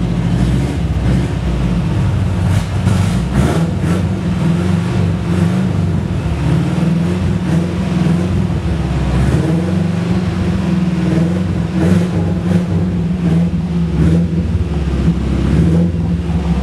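Old Chevrolet truck's inline-six engine running as the truck gets under way, its note rising and falling a little.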